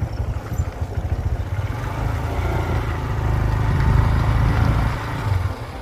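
A motor vehicle engine running on the move: a low, uneven rumble that swells louder past the middle and eases about a second before the end.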